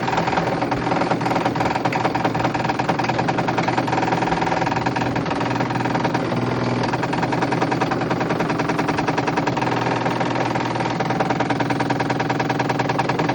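Indesit Innex BWD71453 washing machine running with a fast, even rattle over a steady hum, the noise of a machine with a fault.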